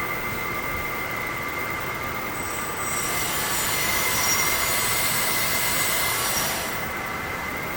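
Hydraulic system of a LESU 1/14 9150 RC excavator running with a steady high whine. A louder hiss with thin high squealing tones joins in about three seconds in and cuts off near seven seconds.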